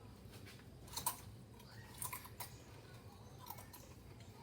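Potato chips being chewed, with a few sharp, brief crunches; the loudest comes about a second in.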